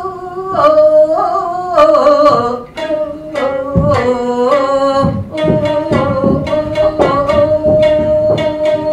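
Gidayu-bushi chanting of Japanese puppet theatre: a tayu's voice sings long sliding notes over sharp plucks of a futozao shamisen, holding one note steadily through the second half.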